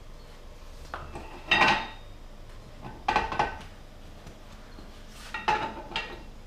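Small steel parts from a torn-down rear differential, such as spider gears and washers, clinking and clattering against metal as they are handled. The clatter comes in three short bursts, the loudest about a second and a half in, then around three seconds and five and a half seconds in.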